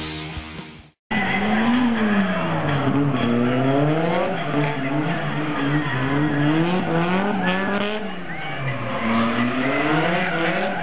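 Rock music cuts off about a second in, followed by a drifting car's engine revving up and falling back again and again, every second or so, with tyres squealing as the car slides.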